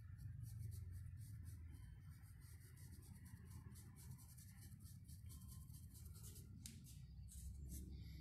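Faint scratching of a paintbrush worked in quick short strokes across a rough, porous wooden board, over a low steady hum.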